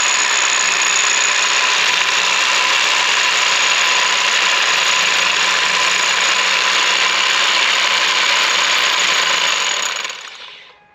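Bauer corded hammer drill running at full speed with a 1-inch bit boring through the crawl space wall: a steady, loud noise with a high whine, winding down and stopping near the end.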